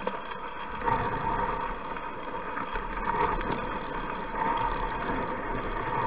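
Steady hiss and scraping of a dog-drawn sled gliding over snow behind a running team of sled dogs, with small irregular knocks along the way.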